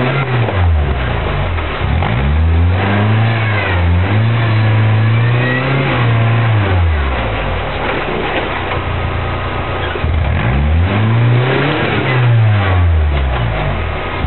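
Rock-crawler buggy's engine revving up and falling back in repeated pulls, about five times, with a lower stretch in the middle, as it climbs a steep boulder ledge under load.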